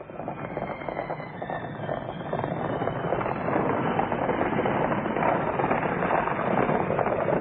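Team of horses galloping and a stagecoach's wheels clattering, a dense rattling noise that grows louder over the first few seconds as the coach comes close and passes.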